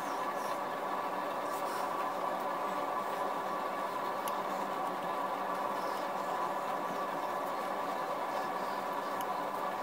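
Steady mechanical hum throughout. Over it come a few faint, scattered crisp ticks as a hand carving gouge pares small cuts in the wooden gunstock.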